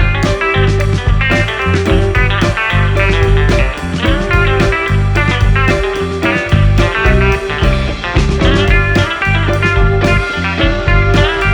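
Background music: a guitar-led rock or blues track with a steady beat and heavy bass.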